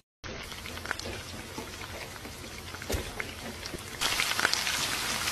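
Food frying in hot oil in a frying pan: a steady sizzle with scattered pops and spatters, growing louder about four seconds in.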